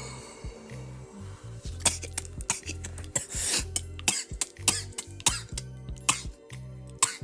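A person coughing over and over in short, sharp hacks, starting about two seconds in, over background music with a steady bass line.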